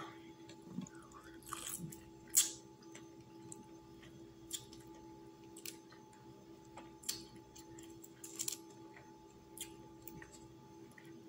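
Cooked shrimp peeled by hand and chewed: scattered short crackles and clicks of shell and mouth sounds, every second or two, over a steady low hum.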